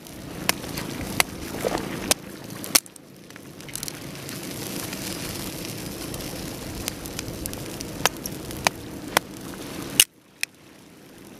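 Small wood campfire crackling, with scattered sharp pops over a steady low rushing noise.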